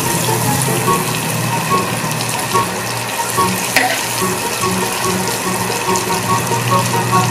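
Butter sizzling steadily as it melts in a hot frying pan, with one sharp click about four seconds in, over background music with a repeating melody and bass line.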